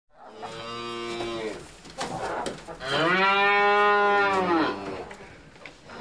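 Cattle mooing twice: a shorter moo near the start, then a longer, louder moo about three seconds in whose pitch rises and then falls.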